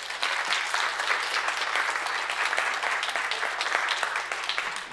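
Audience applauding: many hands clapping together in a dense patter that dies away near the end.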